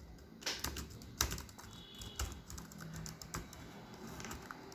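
HP Pavilion laptop keyboard keys being pressed in irregular clicks, one after another, as the keyboard is tested for keypresses that are not registering.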